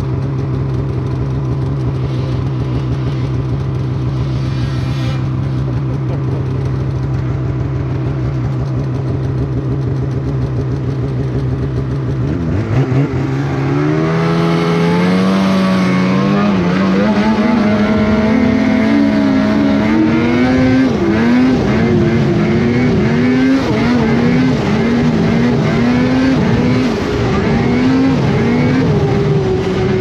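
Snowmobile engine running steadily at low speed, then accelerating hard about twelve seconds in with a sharply rising pitch. It then runs fast with a pitch that wavers up and down as the throttle is worked, and eases off slightly near the end.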